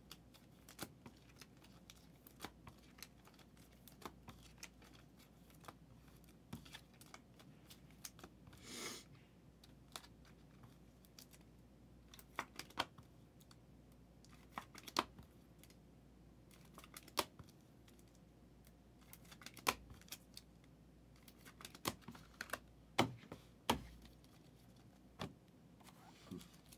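Scattered light clicks and taps of trading cards in plastic holders being handled and set down on a table, with a brief rustle about nine seconds in.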